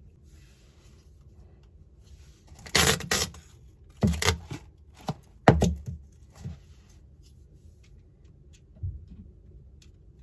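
3D-printed utility knife slicing open a cardboard box, in a few short ripping strokes about a second apart, with fainter scrapes after.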